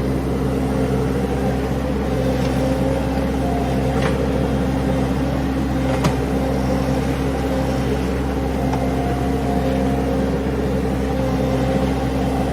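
Mini skid steer engine running steadily, with two short sharp clicks about two seconds apart near the middle.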